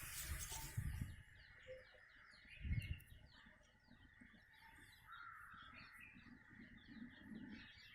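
Many birds chirping, a dense run of short, quick calls overlapping one another. Faint overall, with a brief low thump a little under three seconds in.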